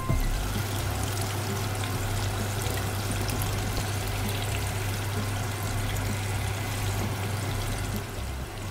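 Hot water pouring in a steady stream from a kettle into a pot of mung bean, squash and coconut-milk stew, with a steady low hum underneath.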